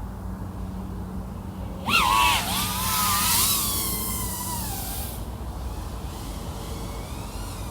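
Quadcopter's brushless motors and propellers, iFlight AOS 3.5 V5 with XING 1504 3100KV motors, running at low throttle. About two seconds in the throttle is punched and the motors whine loud and high, the pitch wavering and then sliding down over the next few seconds as the throttle eases; a faint rising whine comes near the end.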